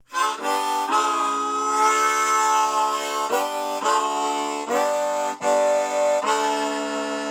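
Music: a reed instrument playing sustained chords that change about every half second to a second.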